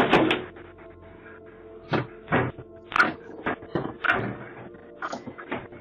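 A series of irregular knocks and thuds, about ten sharp hits spread over a few seconds, over a faint steady hum.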